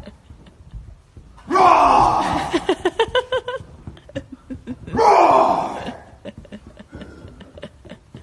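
A person's loud drawn-out yells, each falling in pitch, twice: about a second and a half in and again about five seconds in. The first breaks into a quick run of short pulses. Light taps and scuffs fall between them.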